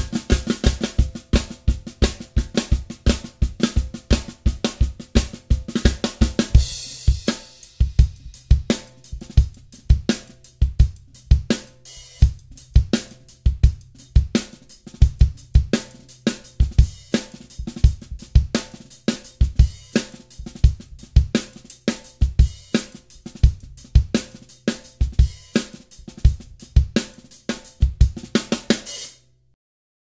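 Drum kit played in a steady groove featuring a Drumeo 2017 Dunnett 14x6 snare drum tensioned two full turns past finger tight, with bass drum and hi-hat. A cymbal wash rings over the first several seconds. The playing stops suddenly just before the end.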